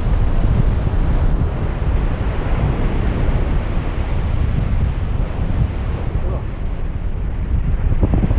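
Ocean surf breaking and washing up the beach, over a steady low rumble of wind buffeting the microphone.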